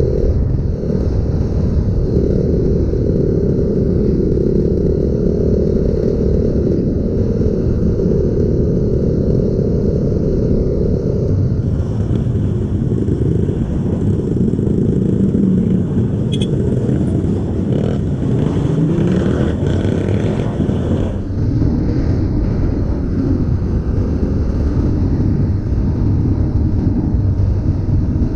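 Kawasaki KLX trail bike's single-cylinder four-stroke engine, stock exhaust, running steadily under load while riding a dirt track. A higher hiss joins for several seconds in the middle.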